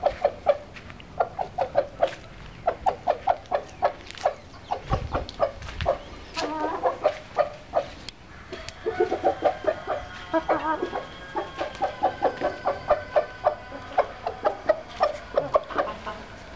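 A flock of chickens, frizzles among them, clucking in quick runs of short clucks, several a second, with a few longer, wavering calls mixed in.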